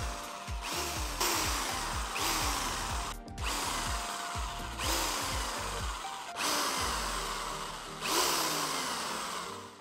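Corded electric drill with a spool in its chuck, run in a series of short bursts on the trigger, winding old fishing line off a reel.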